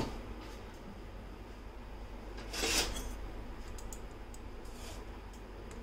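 A brief rasping scrape about two and a half seconds in, then a few faint ticks: metal kitchen utensils being handled.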